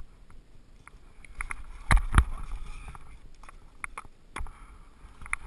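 Irregular knocks and scrapes of a climber scrambling over rock in ski boots and gloves, with two loud knocks in quick succession about two seconds in.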